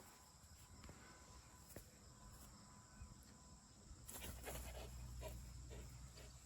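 Near silence: faint outdoor background with a few soft ticks, and a low rumble that starts about four seconds in.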